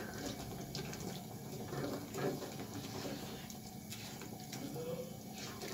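A spoon stirring grated carrot through curdled milk in a frying pan: wet sloshing with soft scrapes of the spoon against the pan, in irregular strokes about once a second.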